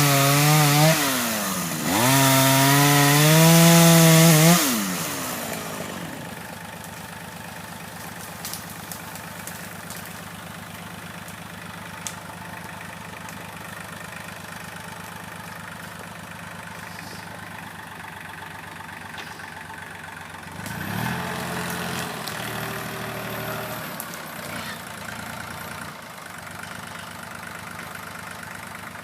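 Chainsaw running at high revs, its pitch dipping and climbing, then cutting off after about four and a half seconds. A quieter engine idles steadily after that, with a brief rise in revs about two-thirds of the way through.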